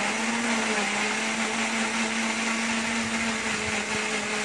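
Wonderman Nutritional Extractor personal blender motor running at a steady pitch, puréeing sliced ripe mango into a liquid purée.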